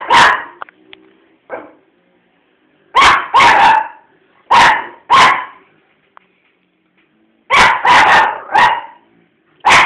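A dog barking close by: loud, sharp barks in short volleys of two to four, with pauses of one or two seconds between volleys.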